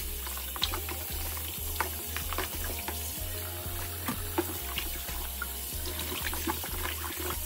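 Kitchen faucet running into a tub of water in a stainless steel sink, with splashing and sloshing as racks of raw pork spare ribs are rubbed in the water and lifted out.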